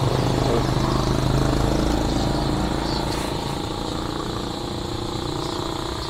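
A motor vehicle engine running steadily close by, gradually getting quieter.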